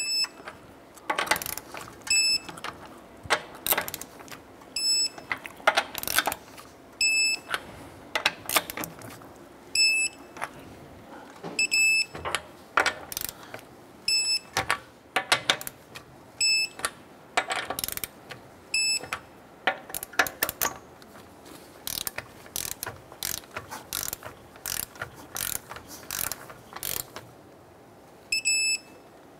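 Torque wrench ratcheting wheel lug nuts down to 80 foot-pounds, in runs of quick clicks. Short high-pitched beeps sound every second or two through the first half and once more near the end.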